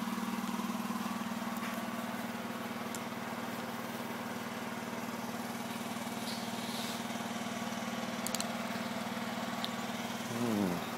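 Portable generator engine running steadily with an even, low hum. Near the end, a short falling voice-like sound.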